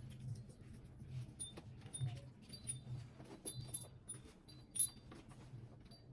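Small hanging pieces of a handmade decorative doorbell chime tinkling faintly, with light clicks and short high ringing notes, the brightest a little under five seconds in. A steady low hum runs underneath.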